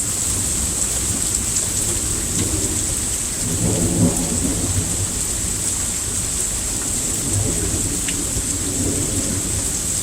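Heavy rain pouring steadily in a thunderstorm, with a low rumble of thunder that swells briefly about four seconds in.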